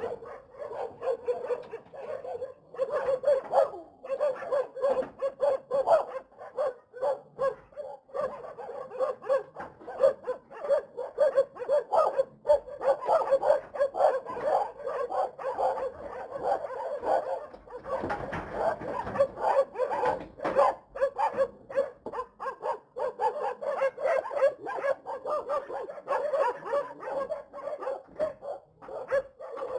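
Dogs barking again and again, several barks a second, with no let-up.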